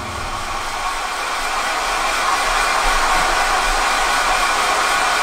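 Steady loud hiss of TV-style static, an even rush of noise that grows a little louder as it goes.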